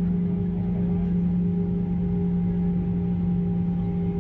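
Steady cabin drone of an Airbus A320-214 with CFM56 engines, heard from inside the cabin: a constant low hum with a few steady higher tones over a rushing bed, unchanging throughout.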